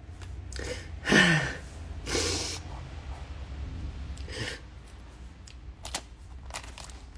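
A woman's sniffs and breaths, with a voiced sigh that falls in pitch about a second in and a louder sniff or breath a second later, among a few soft clicks and rustles.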